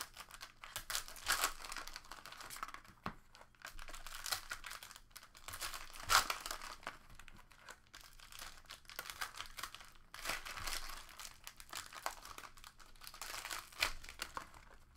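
Plastic wrapping of Panini Prizm basketball card packs being torn open and peeled off by hand: irregular crinkling and tearing, with a few sharper crackles.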